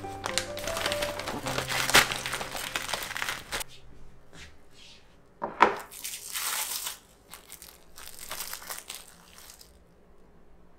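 A plastic zip bag crinkling and frozen watermelon ice crunching as it is scraped out with a spoon, as soft background music fades out. A sharp knock a little over five seconds in, then more plastic rustling.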